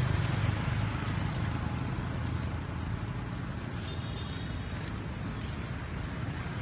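Steady outdoor background noise: a low rumble with hiss, a little louder at the start and easing off. A brief faint high trill sounds about four seconds in.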